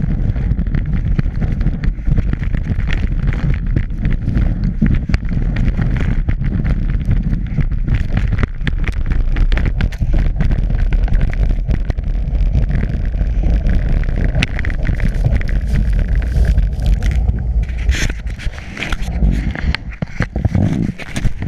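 Skis running and scraping over packed snow at speed, heard through a GoPro strapped to the ski boot: heavy low wind rumble on the microphone with many sharp knocks and rattles as the boot-mounted camera jolts. The noise eases and turns patchy near the end as the skier slows.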